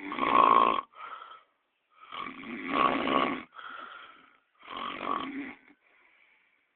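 Snoring in a slow rhythm: three loud rasping snores about two and a half seconds apart, each followed by a shorter, softer breath.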